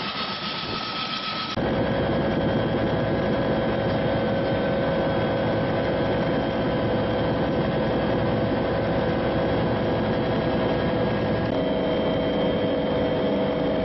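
Helicopter running: a steady turbine whine over rotor and engine noise. About a second and a half in it cuts to a louder version heard inside the cabin in flight, and near the end the whine's pitch shifts at another cut.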